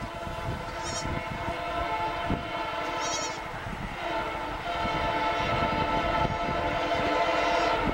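WDP-4 diesel locomotive approaching at speed and sounding its horn in a long, steady blast that grows louder about five seconds in, over the noise of its engine and wheels.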